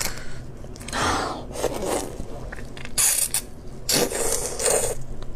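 Close-up eating sounds of a large shrimp being sucked straight from the shell: several separate noisy slurps and crunches.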